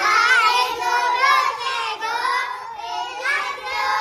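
A group of young children calling out together, many high voices overlapping.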